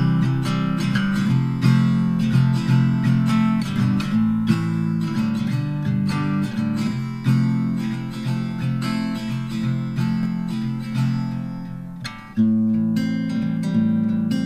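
Background music: acoustic guitar playing plucked and strummed notes, with a short dip about twelve seconds in before a new phrase begins.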